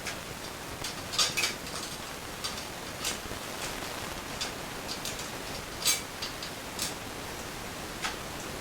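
Irregular light clicks and ticks, about one every half second to second and a half, over a steady hiss.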